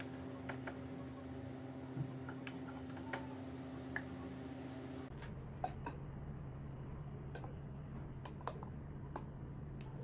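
A serving spoon lightly clicking and tapping against bowls and a clay pot as fried potato cubes and meat are spooned in: a scattering of irregular small clicks over a steady low hum that changes about halfway through.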